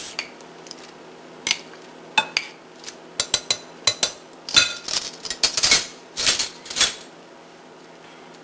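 Metal measuring spoon clinking and tapping against a glass mixing bowl while relish is scooped in, a series of quick sharp clicks from about a second and a half in until about seven seconds in.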